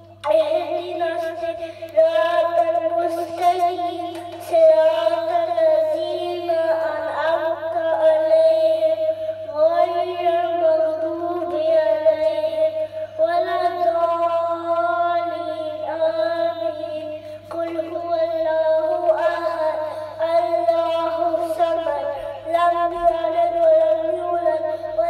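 A young boy's voice chanting an Islamic devotional recitation in long melodic phrases, sung into a handheld karaoke microphone, with a steady low hum underneath.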